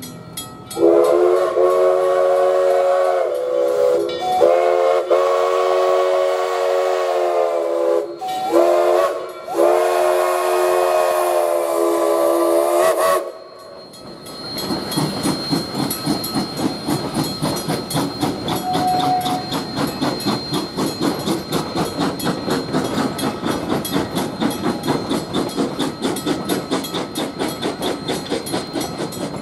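Coal-fired narrow-gauge steam locomotive Rio Grande Southern 20 blowing its chime steam whistle in the grade-crossing pattern, long, long, short, long. About fourteen seconds in, the whistle stops and the train rolls through the crossing with a fast, even rhythmic clatter.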